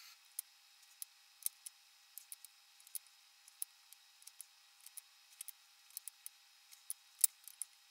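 Faint, irregular sticky clicks and ticks of hands rolling oat-and-peanut-butter dough into balls and setting them on a plate, over a faint steady tone.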